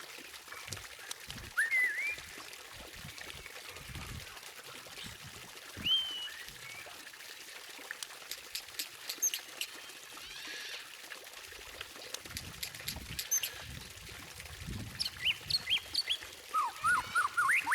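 White-rumped shama (murai batu) singing: separate whistled notes sweeping up and down, bursts of fast, high clicking chatter midway, and a rapid run of repeated notes near the end.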